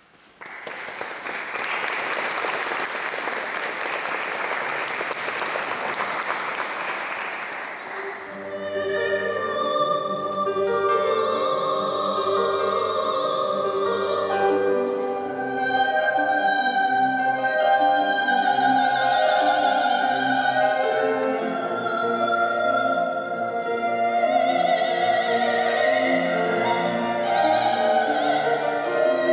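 Audience applause that starts suddenly and fades out after several seconds; then a grand piano begins and a soprano sings a classical art song or aria with piano accompaniment.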